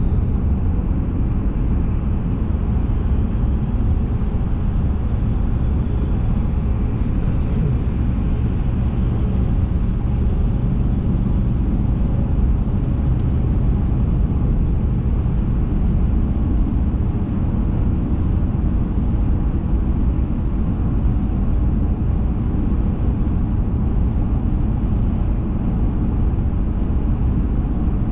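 Steady low rumble of a vehicle being driven at an even speed: engine and road noise.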